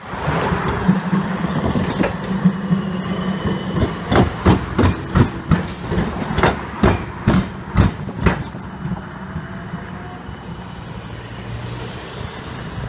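Siemens Combino tram crossing the railway at a tram square, its wheels clacking over the gaps where the tram rails cut through the railway rails. It runs with a steady hum, then gives about a dozen sharp clacks in quick succession over some four seconds, and the running sound fades after that.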